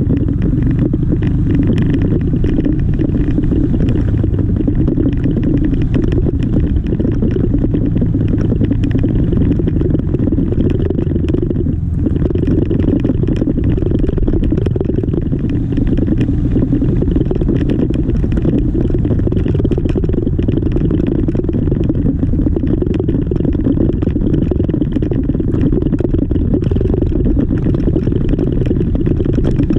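Yamaha XMAX 300 scooter's single-cylinder engine running under way, heard together with road and wind noise as a steady low rumble.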